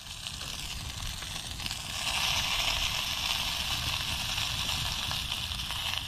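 Sauce in two metal camping pans sizzling and bubbling on campfire embers, growing louder about two seconds in, over a low rumble.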